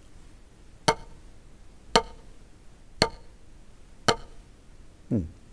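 Wooden drumsticks striking a rubber practice pad in slow full strokes with American grip: four single hits about a second apart, each with a short ring.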